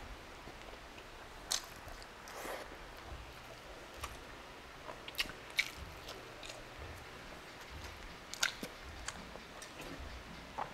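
Close-miked chewing of beef stew and rice, with scattered short wet mouth clicks and smacks.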